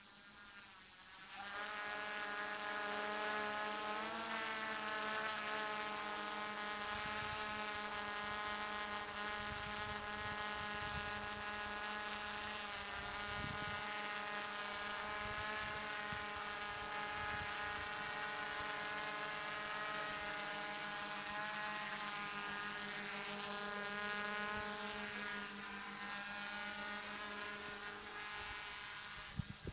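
DJI F450 quadcopter's motors and propellers buzzing steadily in flight, becoming much louder about a second and a half in and wavering slightly in pitch as it holds a hover and descends.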